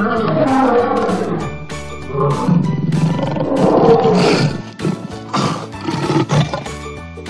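A lion roaring: two long roars that fall in pitch, then shorter ones, over background music with a steady beat.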